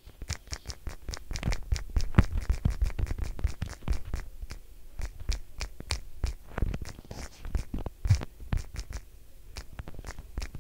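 Fingertips tapping on a smartphone's touchscreen while typing, picked up through the phone's own body as an irregular run of sharp taps with dull thuds under them, several a second.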